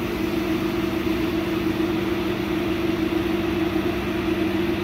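A 100-watt laser cutter running while it cuts MDF sheet: a steady, even mechanical hum with a low drone.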